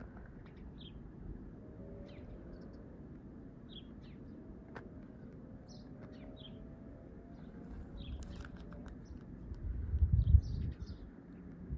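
Small birds chirping, short high calls scattered throughout over a faint steady background hum. About ten seconds in there is a brief burst of low thumping.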